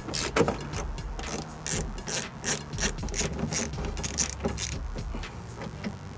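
Ratchet wrench with a T45 Torx bit clicking in short, irregular strokes as a door-frame bolt is undone.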